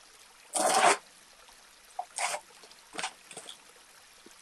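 Cardboard mailer box being torn open: a loud ripping rasp about half a second in, then a few shorter tearing scrapes.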